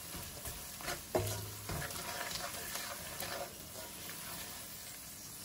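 Wooden spoon stirring and scraping onions, garlic and ground spices frying in oil in an aluminium karahi, with a light sizzle and a few sharper scrapes in the first two seconds.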